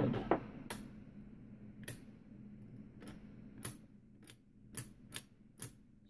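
Baldwin Estate 6320 mortise lock mechanism being worked by hand, giving a series of sharp metal clicks, about eight, irregularly spaced and coming faster toward the end. The freshly reassembled lock is being tested and operates properly.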